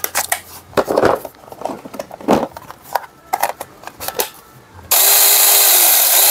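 Plastic clicks and knocks from handling a cordless mini chainsaw. About five seconds in, its brushed electric motor switches on and the chain runs with a loud, steady whir.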